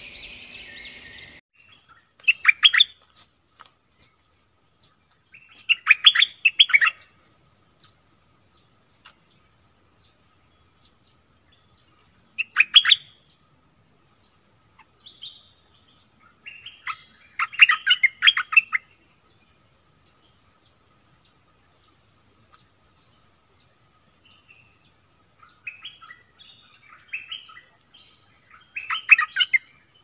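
A young caged bulbul (nok dok taeng) singing about five short bursts of quick chattering phrases, its song not yet full. A faint insect ticks regularly, under twice a second, behind it, and a brief intro sound effect plays in the first second or so.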